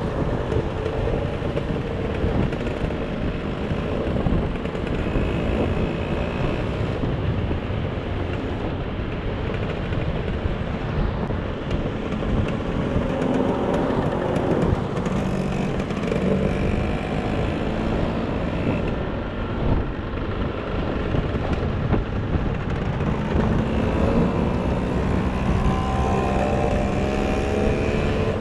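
Motor scooter engine running on the move, with wind rushing over the microphone; the engine note rises and falls several times.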